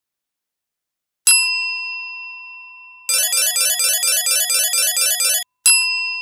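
Sound-effect bell ding that rings out and fades, then a fast, evenly repeating run of chime ticks, about four or five a second for over two seconds, as a tally counts up, ending in a second ding.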